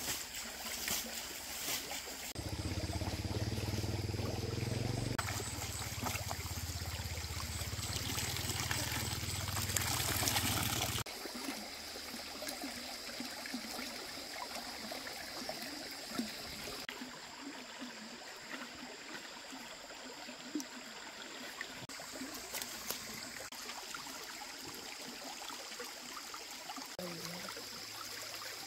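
Running water trickling and flowing. A low, steady hum joins it from about two seconds in and stops suddenly about eleven seconds in.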